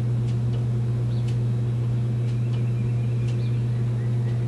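Small birds chirping in short high calls, roughly one a second, over a loud, steady, low electrical or machine hum.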